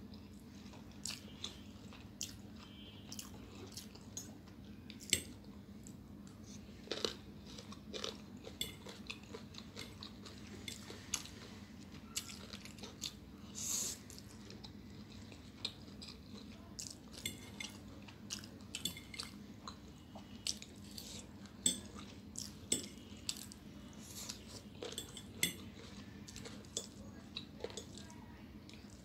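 Close-up eating of chowmein noodles: wet chewing and biting with some crunch, and frequent small clicks and scrapes of a metal fork on a plate, over a steady low hum.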